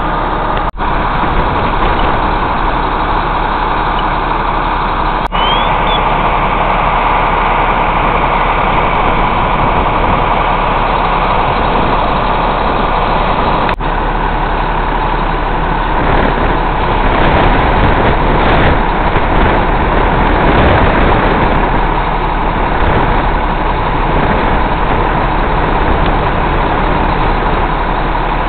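An engine idling steadily, a constant drone over a low hum, with three split-second dropouts: about a second in, at about five seconds, and near the middle.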